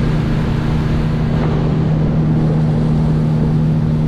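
A 50 hp outboard motor running steadily at speed, a constant drone over a rush of wind and water as the boat planes.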